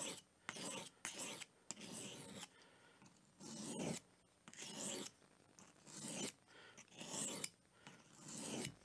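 Pocket knife blade being stroked across an oiled sharpening stone: a faint rasping swipe roughly once a second, each pass drawn from the base of the blade out to the tip.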